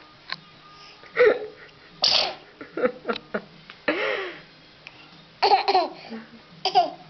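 A person sneezing, several short, sharp sneezes in the first four seconds, followed by laughter in the last part.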